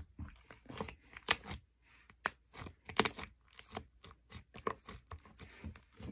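Homemade slime being stretched and squished by hand, giving irregular sticky clicks and crackles several times a second as it is worked to trap air for a bubble.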